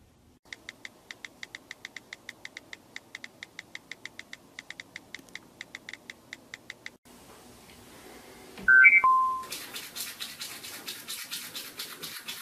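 Rapid, regular clicks of a phone keyboard being tapped, about five a second with short pauses. Then a thump and a short three-note electronic chime, the loudest sound, followed by fast, hissy scrubbing strokes of a toothbrush.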